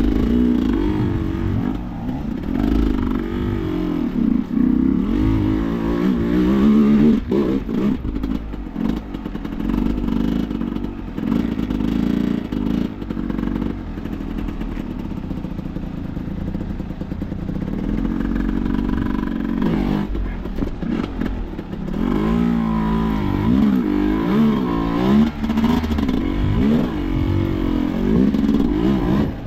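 Off-road enduro motorcycle engine revving up and down repeatedly under throttle, its pitch rising and falling unevenly as the bike works over slippery terrain.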